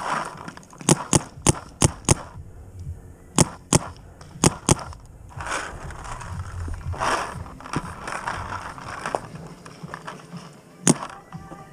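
Paintball markers firing in short strings: about five quick shots in the first two seconds, a pair at about three and a half seconds and another at about four and a half, then a single louder shot near the end.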